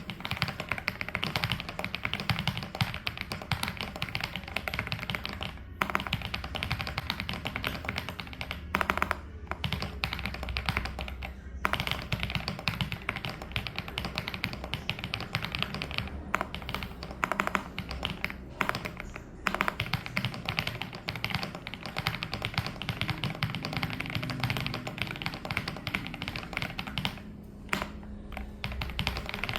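Typing on a WK68 wireless mechanical keyboard with PBT keycaps: a fast, continuous patter of key clicks, broken by a few short pauses.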